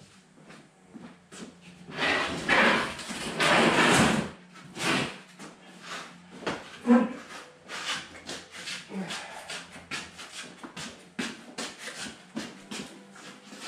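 Knocks, clicks and scraping of things being shifted and handled by hand, with a louder rough scraping stretch about two seconds in that lasts about two seconds.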